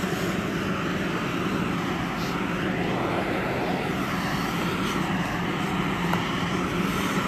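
A fire engine's engine running steadily to drive its pump: a constant low hum under a rushing noise.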